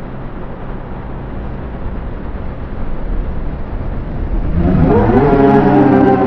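Heavily effects-processed cartoon soundtrack: a steady, noisy, humming rumble, joined about four and a half seconds in by a louder wavering pitched sound, like a distorted song or voice.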